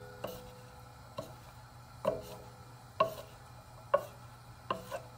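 A wooden spatula knocking and scraping against an enameled cast-iron Dutch oven as chopped vegetables are stirred, with a sharp knock about once a second.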